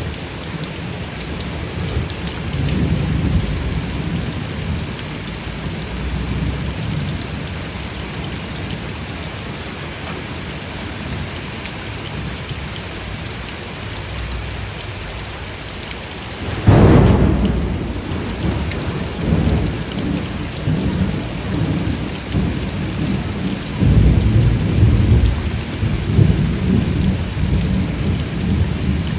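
Steady heavy rain with rolling thunder. About two-thirds of the way through, a sudden loud thunderclap breaks out and rumbles away, and another long rumble of thunder builds near the end.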